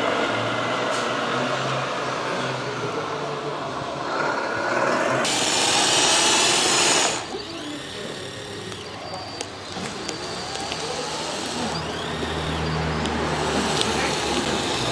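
Radio-controlled model construction vehicles at work: small electric drive motors and sound-module engine noise, over a background of crowd chatter. A loud hiss lasts about two seconds from about five seconds in, then the sound drops sharply and carries on quieter, with a low steady hum in the last few seconds.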